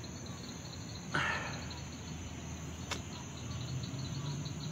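Night chorus of crickets and other insects: steady rapid chirping over a constant high drone. A brief rustle comes about a second in, and a single sharp click comes near the three-second mark.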